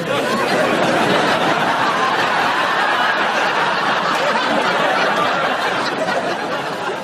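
Sitcom studio audience laughing together, many voices overlapping into a continuous swell of laughter that eases off near the end.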